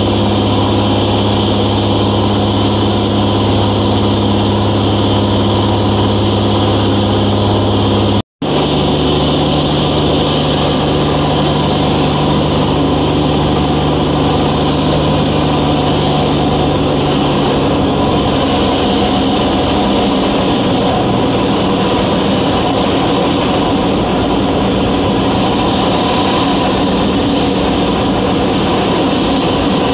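Velocity S-FG's 180 hp engine and pusher propeller droning steadily, heard inside the cabin. A brief dropout comes about eight seconds in, after which the hum sits at a different pitch. From a little past halfway the steady hum turns rougher and less even.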